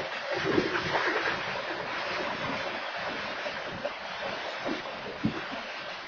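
Freight cars (tank cars and covered hoppers) rolling past on the track: a steady rushing rumble of steel wheels on rail, a little louder in the first second, with a few sharp knocks, the clearest about five seconds in.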